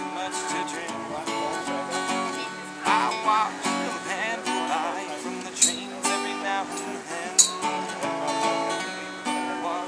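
Steel-string acoustic guitar played live, strummed and picked chords with a wavering melody line above them, and two sharp pick or string clicks in the second half.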